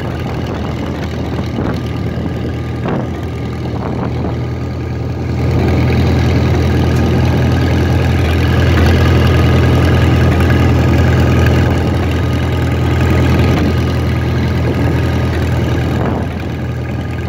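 Engine of a vintage International Harvester tractor running steadily as the tractor is driven along the road, its sound getting louder about five seconds in.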